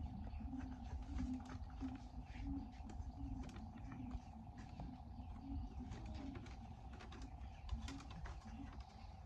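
Pigeons or doves cooing, short low notes repeating about twice a second, with scattered light clicks and taps and a faint steady hum.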